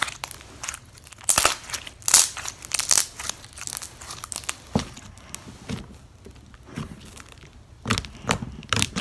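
Green glitter slime being squeezed, stretched and poked in the hands right by the microphone: irregular sticky crackles and pops.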